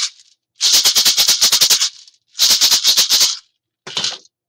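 A maraca shaken in bursts of rapid rattling, about eight shakes a second. The bursts each last about a second with short pauses between, and a brief half-second shake comes near the end.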